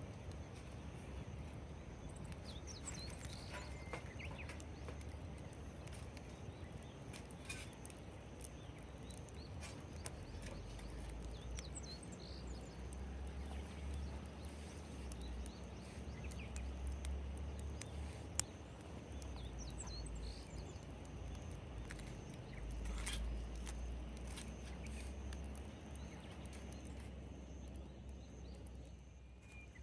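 Campfire crackling, with scattered sharp pops and one louder pop about halfway through. Wind rumbles on the microphone at times, and faint bird chirps come through.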